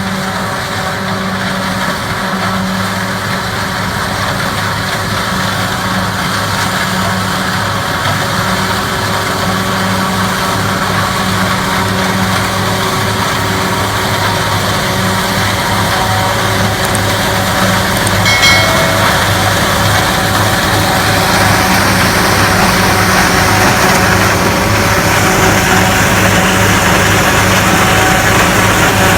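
Diesel engine of a corn-harvesting machine running steadily with a low hum, its mechanical noise growing louder over the second half.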